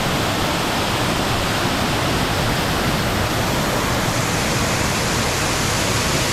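Large waterfall crashing down, a steady loud rush of falling water.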